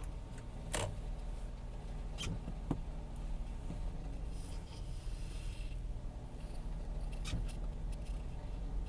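Steady low hum of a car's engine and road noise heard from inside the cabin in slow traffic, with a few scattered sharp clicks.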